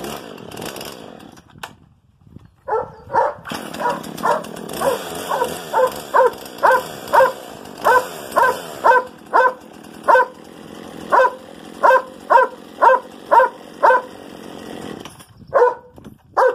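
A Husqvarna 120 Mark II two-stroke chainsaw running, then cutting out about a second and a half in. After a short gap a dog barks over and over, about two barks a second, pauses, then barks a few more times near the end.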